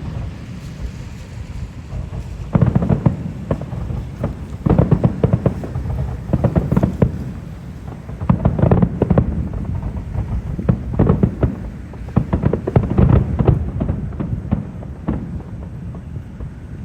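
Fireworks going off in repeated volleys of rapid sharp bangs and crackles over a low rumble, a new burst every couple of seconds.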